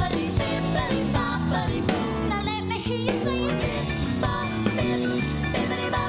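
Upbeat song with singing over a steady drum beat: the music for the dance routine.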